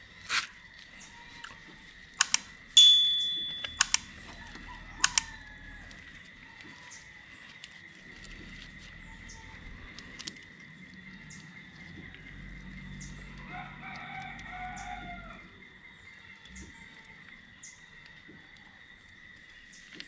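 A rooster crows about two-thirds of the way in, over a faint steady high whine. Earlier there are a few sharp clinks, and one loud clang near three seconds that rings on and fades, like metal tools being handled during motorcycle chain work.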